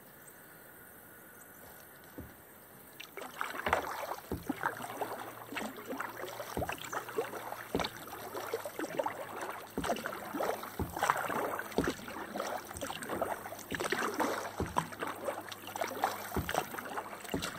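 Kayak paddle strokes: the blades dipping and pulling through calm water with splashing and dripping, and occasional knocks of the paddle. The paddling starts about three seconds in, after a near-quiet moment.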